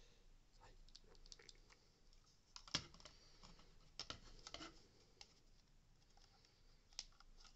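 Faint, scattered clicks and taps of plastic parts as a Dyson V8 vacuum's motor unit is handled and pushed back into its housing, with the sharpest clicks about three seconds in, at four seconds and near the end.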